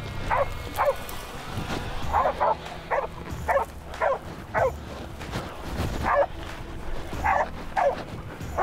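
Pig-hunting dogs barking at a wild boar they are holding at bay (a bail), in short separate barks at an uneven pace, about a dozen in all.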